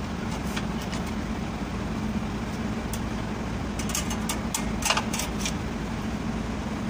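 Steady background noise with a constant low hum, and a few short metallic clicks and clinks about four to five and a half seconds in as a truck's rear drum-brake shoe and its fittings are handled into place.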